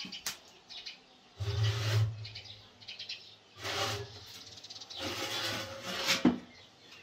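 Metal baking tray scraping and rattling against the oven's rack as it is slid out, in three stretches, with a sharp clink near the end. Birds chirp faintly in the background.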